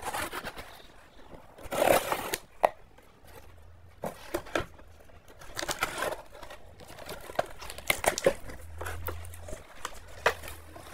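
A taped cardboard shipping box being opened: a utility knife slits the packing tape, the cardboard flaps are pulled back and paper packing crinkles. The sounds come in irregular bursts, loudest about two seconds in.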